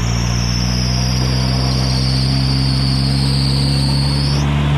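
Toyota Hilux engine running steadily while driving off-road, with a thin high-pitched whine over it that cuts off suddenly near the end.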